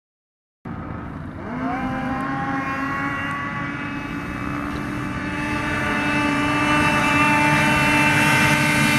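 Several racing snowmobiles at full throttle climbing a hill. The engine sound starts abruptly just under a second in, rises in pitch briefly, then holds at a steady high whine while growing louder toward the end.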